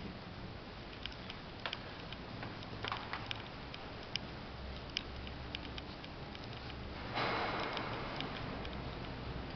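Thin stream of water trickling into a stone baptismal font, with scattered small clicks and ticks. About seven seconds in, a louder rushing noise sets in and slowly eases.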